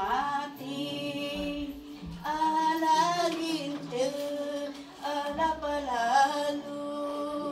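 Women singing a slow song, holding long notes that glide gently between pitches.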